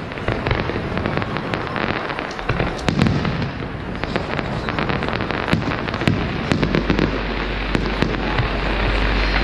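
Fireworks display: a rapid, irregular run of bangs and crackles from bursting shells over a continuous hissing rush. A low rumble joins about two-thirds of the way through.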